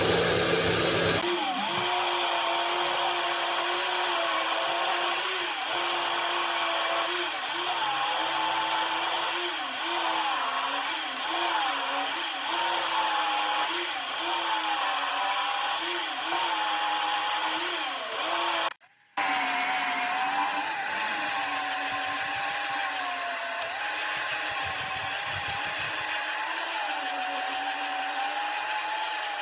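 Electric power tool's motor running, its pitch dipping and recovering again and again as it is pressed against the work. There is a brief break about two-thirds of the way through.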